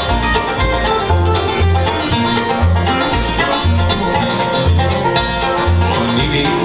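Bluegrass band playing an instrumental passage: banjo picking out front over guitar and fiddle, with a steady bass note on each beat.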